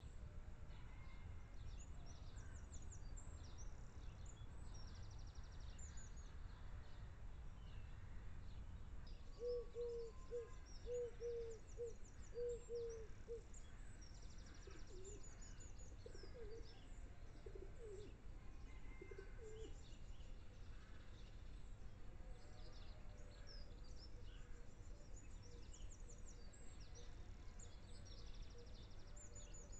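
Faint birdsong: several small birds chirping and trilling throughout, with a pigeon cooing a run of low, evenly spaced notes about a third of the way in and a few more shortly after. A steady low rumble lies underneath.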